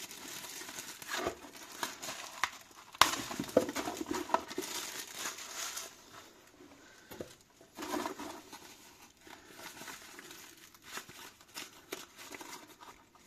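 Clear plastic packaging bag crinkling and rustling as it is handled and pulled off a nylon tourniquet pouch, with a sharp click about three seconds in. It dies down to quieter, scattered handling noise after about six seconds.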